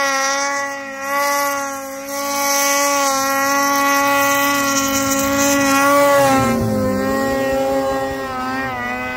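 Two-stroke snowmobile engine running hard at high revs with a steady pitch. The revs drop briefly about six to seven seconds in and then climb back, and they waver near the end.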